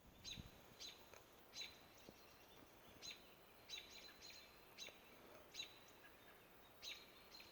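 A bird's short, sharp chirps, faint and repeated at irregular intervals about once or twice a second, some in quick pairs, over a quiet dawn background.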